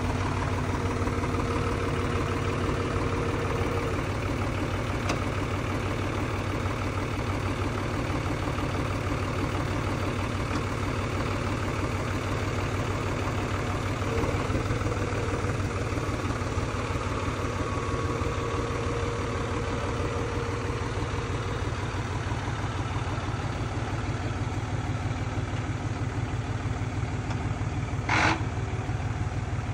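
John Deere tractor's diesel engine running steadily as the tractor drives slowly across grass, with a faint whine that comes and goes. There is one sharp clank near the end.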